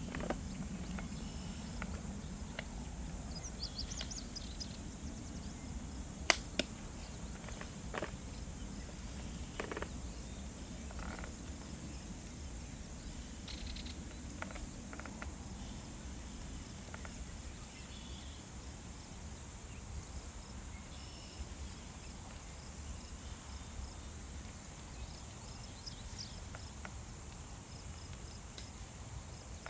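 Steady high chirring of insects, with a few sharp clicks and knocks in the first third, the loudest about six seconds in.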